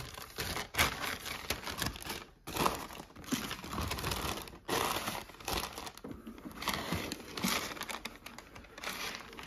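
Paper wrapping in a shoebox crinkling and rustling in irregular bursts as the printed wrapping paper and tissue paper are handled and pulled back from a pair of sneakers.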